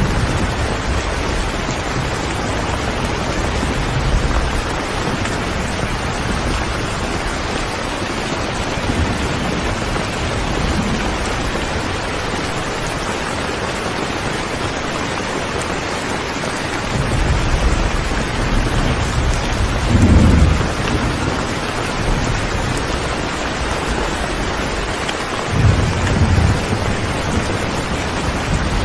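Steady rain falling, with low rolls of thunder rumbling in about two-thirds of the way through and again near the end.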